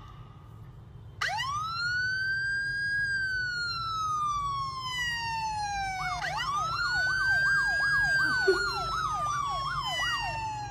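Police-style siren: a wail that starts about a second in, rises, then slowly falls. About six seconds in, a second wail joins with a rapid yelp sweeping up and down several times a second.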